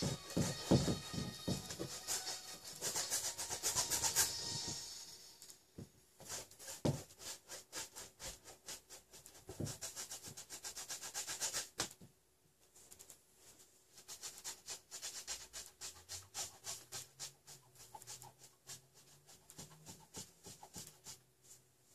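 Paintbrush scrubbing oil paint onto a stretched canvas in quick repeated back-and-forth strokes, with a short break about twelve seconds in.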